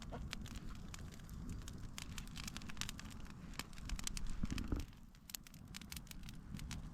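Small campfire crackling, with irregular sharp pops over a low steady rumble.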